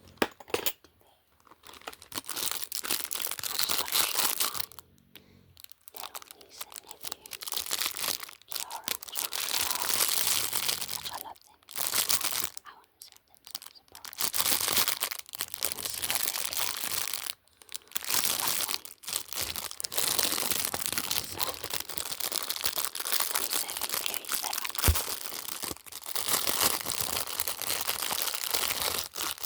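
Packaging being crinkled and torn open by hand, in repeated crackling stretches of a few seconds each with brief pauses between.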